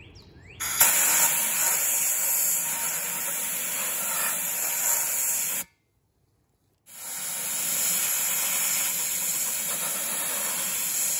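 Harbor Freight handheld media blaster firing used coffee grounds at a painted steel wheel: a loud, steady hiss of compressed air and grit. Two long blasts, about five seconds each, with a stop of about a second between them.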